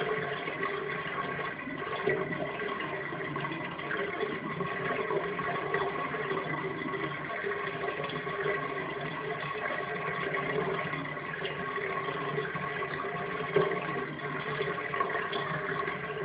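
Bathwater running down an open bathtub drain: a steady rushing with a few held tones in it, and one brief louder sound about thirteen seconds in.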